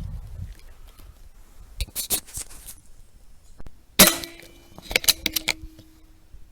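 A rifle shot: a single sharp crack about four seconds in, followed by a ringing tone that hangs on. Before it comes a short cluster of clicks, and a quick run of clicks follows soon after the shot.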